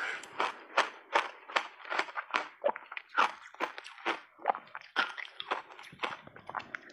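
Crunchy snow-white block ice being chewed close to a clip-on microphone: a steady run of sharp crunches, about three a second.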